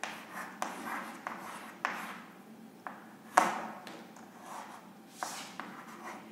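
Chalk writing on a blackboard: a dozen or so short, irregular scratches and taps as letters are formed, the loudest about halfway through.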